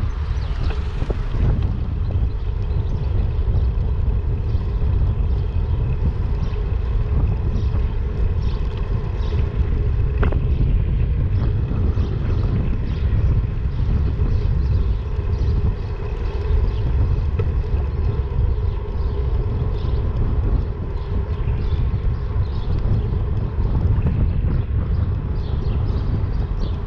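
Steady wind rush on the microphone of a camera riding on a moving motorbike, with a continuous low rumble from the ride underneath.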